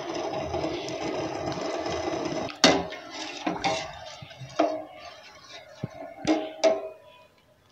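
A steel ladle stirring kadala pradhaman (jaggery and chana dal payasam) in a stainless steel pot, keeping it from catching on the bottom. A steady simmering noise for the first couple of seconds, then a sharp clink of ladle on pot and a few more knocks and scrapes as the stirring goes on.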